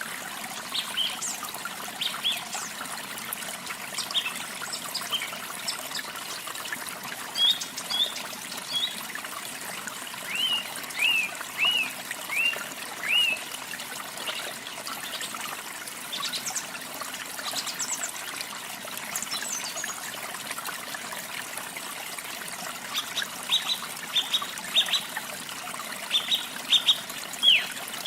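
Songbirds chirping and singing over the steady rush of a waterfall. About ten seconds in, one bird gives a run of five short, downward-swooping notes; near the end come clusters of quick, high chirps.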